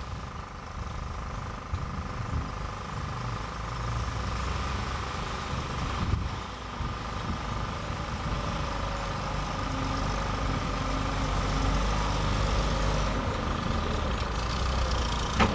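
Ex-army lorry's engine running as it drives slowly across grass, growing louder as it approaches.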